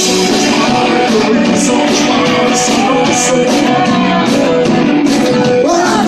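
Live rock and roll band playing: strummed acoustic guitar with a man singing at the microphone over a steady beat.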